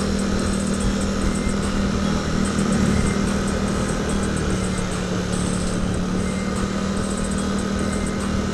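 Onboard sound of a sport motorcycle cruising steadily in traffic: an even engine hum with wind and road noise. The engine note lifts briefly about three seconds in.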